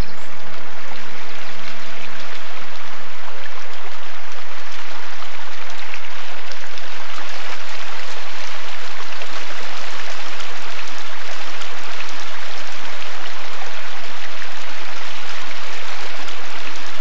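Small woodland stream running over rocks: a steady rush of flowing water. Background music fades out in the first few seconds.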